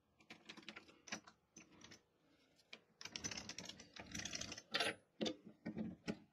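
Faint clicks, taps and rustles of hand work at a stopped mini metal lathe: the carriage is moved back and the chuck key is fitted into the three-jaw chuck. The taps come at irregular intervals, with a couple of short rustling scrapes around three and four seconds in.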